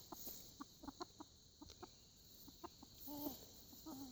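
Chickens clucking faintly: a string of short, soft clucks, two or three a second, with a longer wavering call about three seconds in and again near the end.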